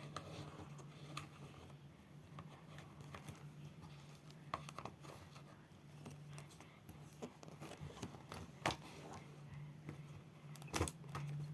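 Faint clicks and rustling of plastic liner pens being handled and laid into a pencil case, with a few sharper clicks and a steady low hum underneath.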